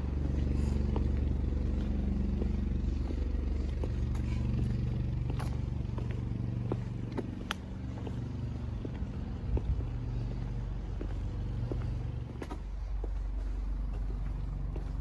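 Low steady rumble of road traffic on a town street, with a few faint scattered clicks.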